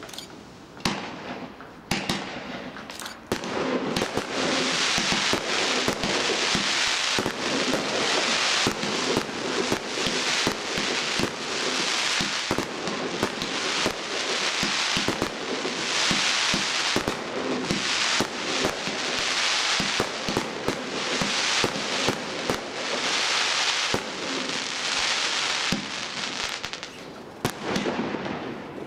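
Consumer firework cake (battery) firing many shots in quick succession. From about four seconds in, the shots merge into a dense, continuous rush that swells every second or two, and it thins out near the end.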